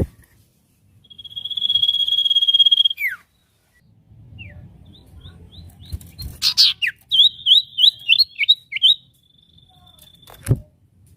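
Spotted owlet (burung sirtu) calling: a long, high screech held for about two seconds that drops away at the end, then a quick run of short chattering notes, about three a second. A single sharp click near the end.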